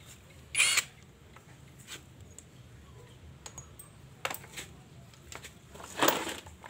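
Metal hand tools clinking and clattering against each other and the concrete floor as a mechanic picks them up to start dismantling, with a sharp ringing clink about half a second in, a few lighter clicks, and another ringing clatter near the end.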